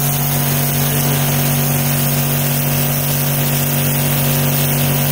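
Aimex DT-6520 high-pressure washer running: its 2.5 HP electric motor and brass plunger pump give a steady, loud hum with an even hiss over it.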